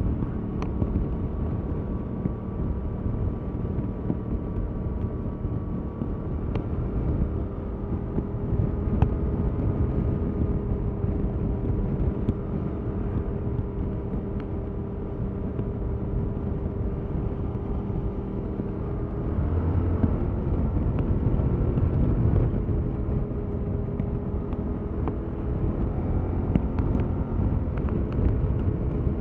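Stock 2021 Yamaha MT-07's 689 cc parallel-twin engine running under way at a fairly steady speed. About two-thirds of the way in, the note changes and gets louder as the bike pulls harder for a few seconds, then it settles again.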